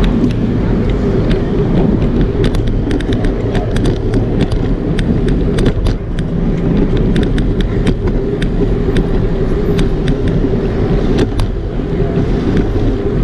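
Bicycle riding over sidewalk concrete, heard from a camera mounted on the bike: a steady low rumble, with many sharp clicks and rattles from about two seconds in until near the end.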